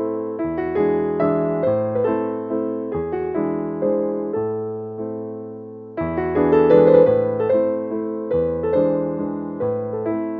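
Background music: a gentle electric piano playing chords. The notes fade off towards the middle, and a louder phrase starts about six seconds in.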